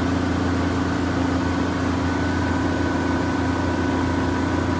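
Steady hum of plant machinery: air compressors and a chiller that cools the antifreeze run through the injection molds. It runs with a low drone and a faint high whine that grows a little clearer about two seconds in.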